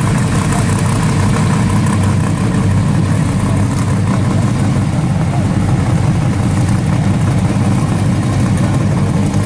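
Street rod's engine idling with a steady low rumble as the car rolls slowly at walking pace. The car is a customised 1930s Chevrolet coupe.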